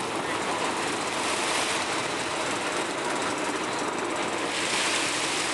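Steady noise of a sportfishing yacht's engines running, mixed with water rushing past the hull, with no breaks.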